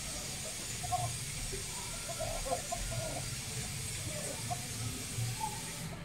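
A steady hiss, with a few faint, scattered chicken clucks.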